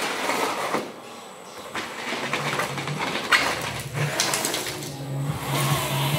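Electric drive motors and gearing of a radio-controlled Liebherr 574 wheel loader model whirring as it drives back and forth, with scattered clicks and a sharp click about halfway through.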